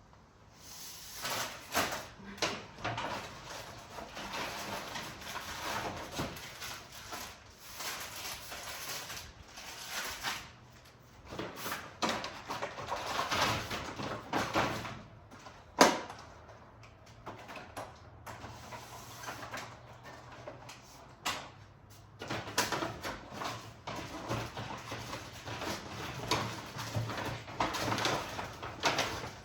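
Groceries being handled and put away: irregular rustling of packaging with knocks and clicks as items are set down, including one sharp knock about halfway through.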